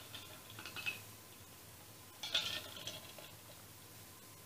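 A person drinking from an insulated tumbler: soft sipping and cup-handling noises in the first second, and another brief one a little past two seconds in.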